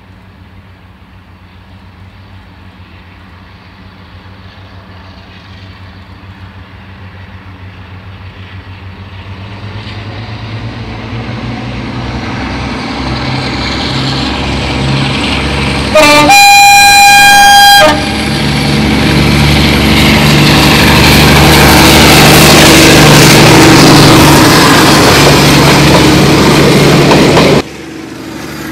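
Class 52 'Western' diesel-hydraulic locomotive D1015, its twin Maybach engines working hard, growing steadily louder as it approaches. About halfway through, its horn sounds for about two seconds. The engine stays loud as it passes close, then cuts off suddenly near the end.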